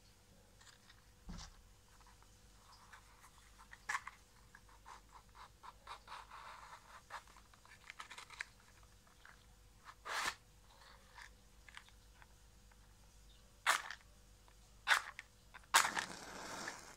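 A box of Lion safety matches handled and slid open, with soft rustling. Near the end a match is scraped along the box's striking strip several times in quick succession, and the last strike catches and flares.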